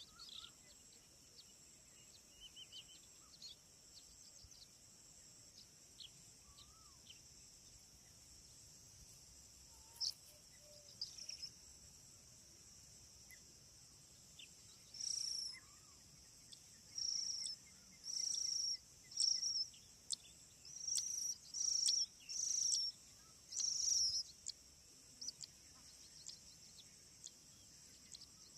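Nestlings begging with a series of short, high-pitched calls, about eight bouts in quick succession in the second half, over a steady high drone of insects.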